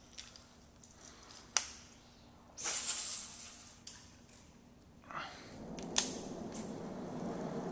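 Rod-and-reel handling during a cast and retrieve: a few sharp clicks, a short hiss about two and a half seconds in, and a steady rushing noise from about five and a half seconds on as the line is reeled in.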